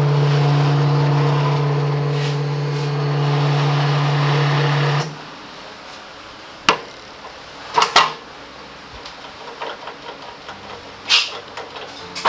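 A workshop machine's electric motor runs with a steady hum for about five seconds and cuts off suddenly. Scattered metal tool clinks and knocks follow.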